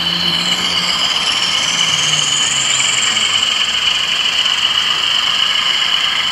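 DCC sound decoder in a model Class 20 diesel playing its English Electric engine sound through the model's small speaker: a steady high turbocharger whistle over a low engine note. A higher whistle rises over the first few seconds, and the low note fades about two seconds in.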